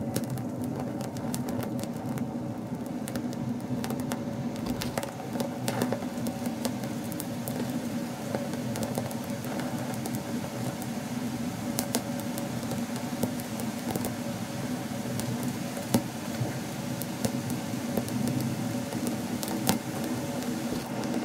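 Alcohol-soaked grapes sizzling and crackling as they burn, with many small irregular pops over a steady low hum.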